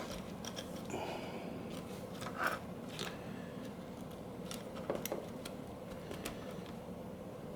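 Faint clicks and light taps of small camera parts being handled and fitted together, over a steady faint hum.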